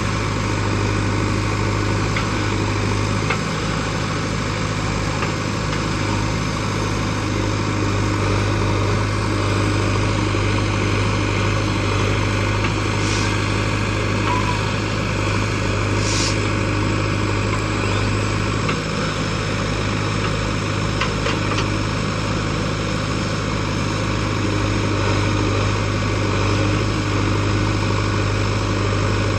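Heavy diesel engine of earth-moving machinery running steadily, with a constant low hum.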